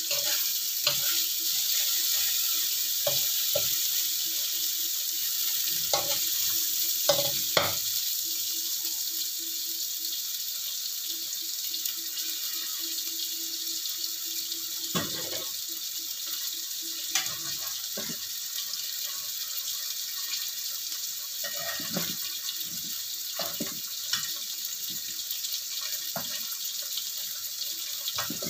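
Ground spice paste with galangal, lemongrass, lime leaves and bay leaves sizzling steadily in hot oil, frying until fragrant, with scattered clicks and knocks in the pan.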